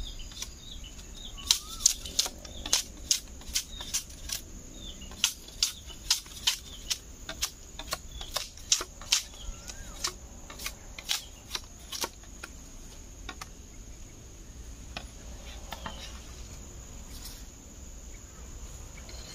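Machete chopping at a green bamboo pole: a run of quick, sharp strikes, about two or three a second, that stops a little past halfway, with a few more later. A steady high insect drone and bird chirps sound behind it.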